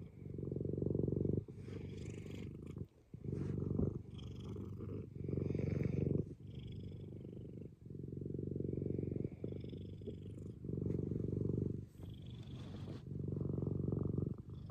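Domestic cat purring close up, a steady low purr that swells and drops with each breath about once a second, the purr of a contented cat lying against its owner.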